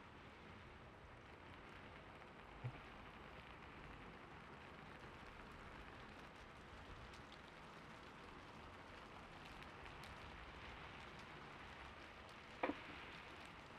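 Gentle rain as a soft, steady hiss, with a short low thud a few seconds in and a louder knock near the end.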